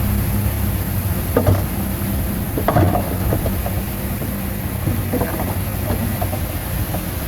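Bulldozer's diesel engine running steadily under a low hum, with a few sharp metallic clanks about one and a half, three and five seconds in.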